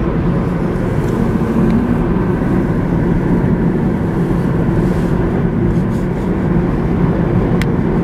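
Steady road noise heard inside a moving car: tyre rumble and engine drone at a constant cruising speed, with a single brief click near the end.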